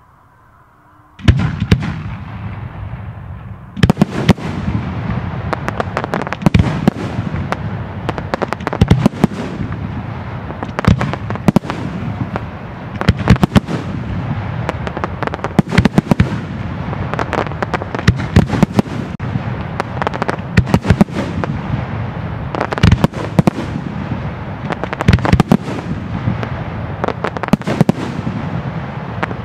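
Fireworks going off in a dense, rapid barrage. It starts suddenly about a second in, steps up louder a few seconds later, then keeps going as a continuous crackle broken by many sharp bangs.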